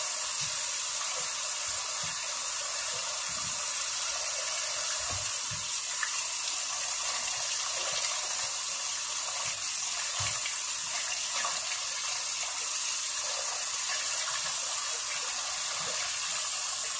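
Kitchen tap running steadily into a stainless steel sink as a whole raw chicken is rinsed under the stream by gloved hands, with a few faint soft knocks as it is handled.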